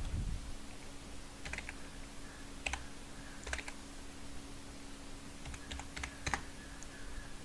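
Computer keyboard being typed on: irregular, scattered key clicks over a faint steady hum.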